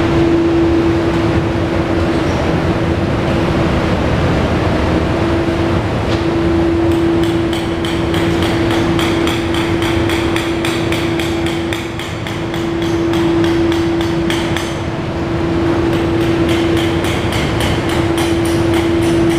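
Ducati 848's L-twin engine running at idle with a steady hum. From about seven seconds in, a fast, even mechanical ticking comes through.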